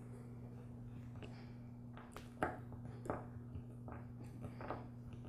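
A screwdriver turning the screws that hold a small trimmer carburetor together, with a few short metallic clicks and taps, the loudest about halfway through, over a steady low hum.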